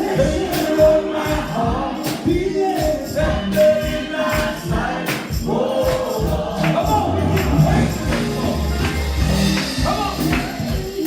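Gospel music: singing over a steady percussion beat with bass.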